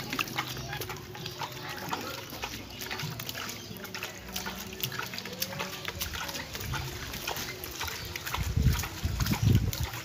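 Water scooped by hand from a plastic bucket and splashed onto a little black cormorant and wet concrete, with many small splatters and drips. A few louder low bumps come near the end.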